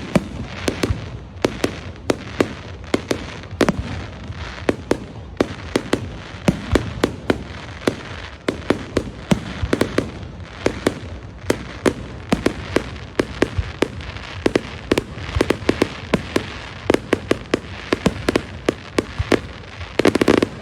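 Fireworks going off in a dense, irregular string of sharp bangs and crackles, several a second, with a louder cluster near the end.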